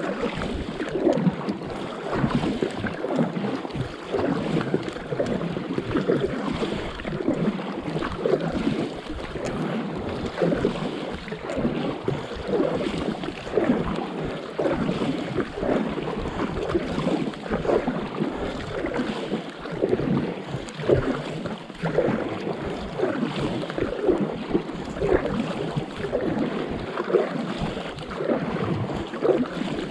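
Water lapping and splashing against a paddleboard and its paddle as it is paddled, a constant irregular patter of small splashes, over a soft hiss of light rain on the water.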